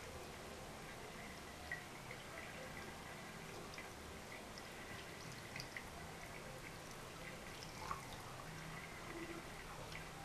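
Thin stream of water running from a bathroom sink tap, trickling onto a hand and into the basin with scattered faint drips.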